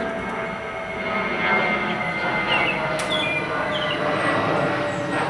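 A steady machine-like drone with several held tones runs throughout. A few short, high chirps come near the middle.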